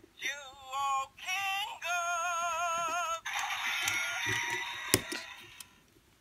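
Short electronic jingle: three held notes stepping upward, each with a wobbling vibrato, followed by a hissing swell. A single sharp click about five seconds in as the plastic Minipla cube parts are pressed together.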